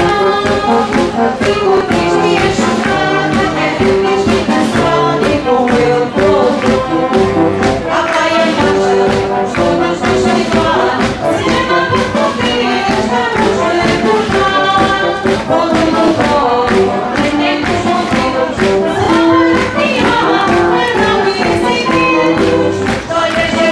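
Marcha popular music: a brass band plays a march tune while a group of voices sings along over a steady beat.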